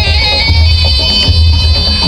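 Loud East Javanese bantengan music: a shrill, droning reed-horn melody over a heavy low drum beat.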